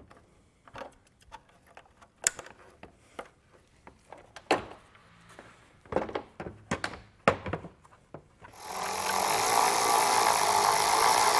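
Scattered plastic clicks and knocks as the tail-light assembly and its wiring connector are handled and fitted. About eight seconds in, a cordless electric ratchet starts running steadily, tightening the tail light's mounting fastener.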